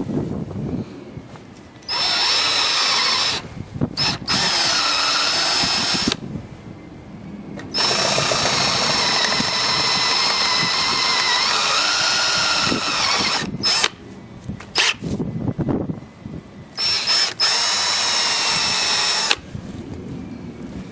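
Power drill running in about five bursts with short pauses, the longest about five seconds, as a bit drills the heads off brass screws set tight against a door hinge.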